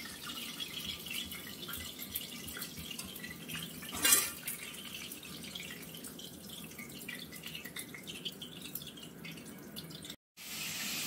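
Seafood frying lightly in hot oil in a kadai: a steady sizzle with fine crackling, and one louder pop about four seconds in.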